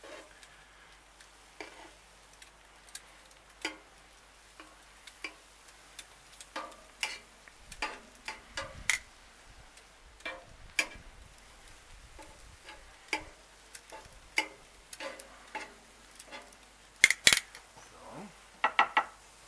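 Metal grill tongs clicking and scraping against a cast-iron pan as chicken breast fillets are turned, with irregular clacks about once a second. The loudest clatter comes near the end, followed by a quick run of clicks.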